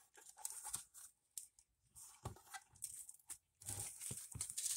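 Faint, intermittent rustling and crinkling of plastic packaging, with small clicks and knocks as hands handle the engine's ignition wires and battery box.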